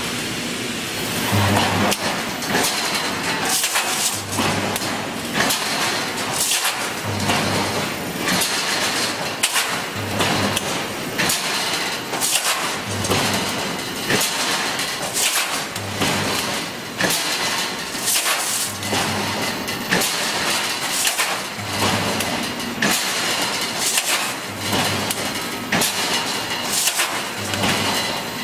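Automatic wire mesh welding machine running through its welding cycle: a short low hum at each weld, about every second and a half, between sharp metallic clanks.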